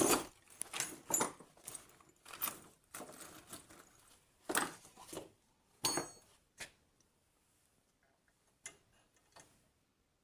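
Metal parts of a fire hose reel being handled and fitted: a string of clicks and knocks, one about six seconds in ringing briefly like metal, then only a few faint taps near the end.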